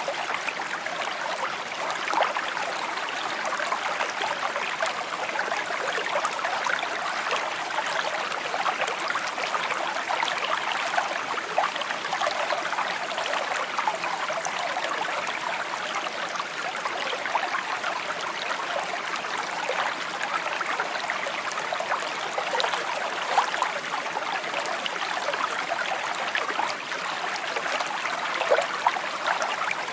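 Small stream babbling and trickling over stones, a steady bright water sound with small splashes flickering through it.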